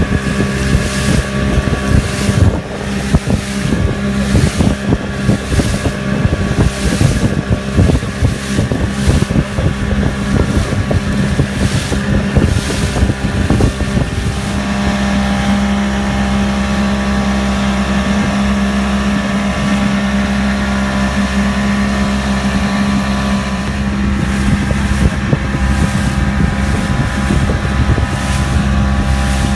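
Motor of a small open fishing boat running under way over choppy sea, with spray and wind buffeting the microphone in irregular gusts through the first half. About halfway the buffeting eases and the steady engine note comes through stronger.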